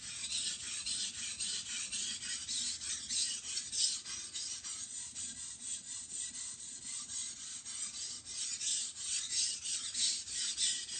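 Steel knife blade scraped back and forth across a wet 400-grit coarse waterstone in quick, even strokes, about four a second. This is the burr-raising stage of sharpening, before the edge is cleaned up.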